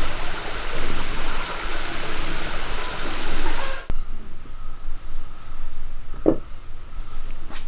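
A stream flowing over rocks, cutting off suddenly a little under four seconds in. Then a terracotta lid is lifted off a clay pot of water, with one short sound about six seconds in.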